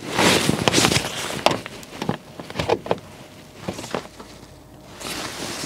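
Work on a car's plastic wheel-arch liner: a burst of rustling in the first second, then a few sharp clicks and knocks as the liner and its fixings are handled and pushed into place.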